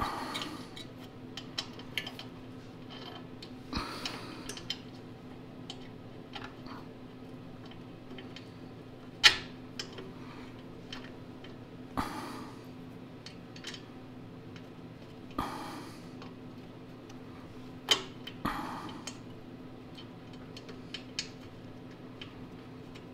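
Small metal parts clicking and clinking as a carburetor and its throttle linkage are handled and fitted onto a small engine, with scattered sharp clicks, a few of them louder.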